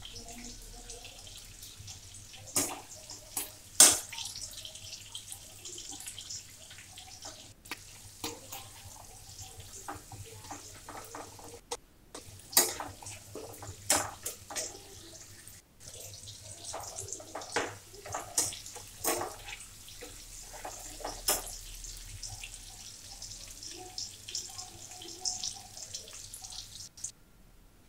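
Sliced onions sizzling in hot oil in a nonstick frying pan, a steady hiss broken by irregular sharp clicks and scrapes of a spatula stirring against the pan.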